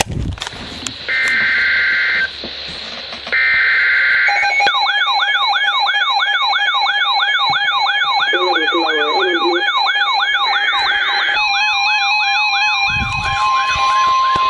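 Two short bursts of warbling SAME digital header data from a NOAA Weather Radio warning broadcast. Then weather alert radios (Midland WR-100 and RadioShack receivers) go off together: a rapid sweeping siren-like alarm, about three to four sweeps a second, over steady beeping tones. About eleven seconds in, the steady NOAA Weather Radio warning alarm tone joins them.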